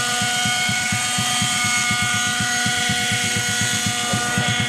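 Vintage Kalt Baron 50-size RC helicopter running steadily: its small glow engine gives a steady whine while the rotor beats a fast, even chop of about ten pulses a second.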